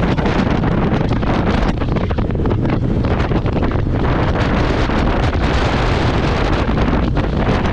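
Heavy wind buffeting the microphone while riding a Honda ADV 150 scooter at highway speed. The scooter's 150 cc single-cylinder engine runs steadily underneath the wind.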